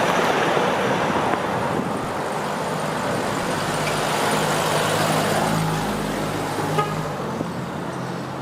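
Road traffic on a rain-wet street: a steady hiss of tyres on wet pavement, with a vehicle's engine hum swelling and passing in the middle.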